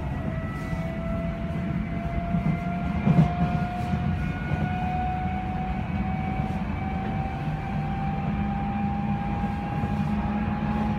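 Odakyu 3000-series electric train heard from inside the car: a whine from its traction motors rises slowly in pitch as the train gathers speed, over a steady low rumble of wheels on rail. A short knock about three seconds in is the loudest moment.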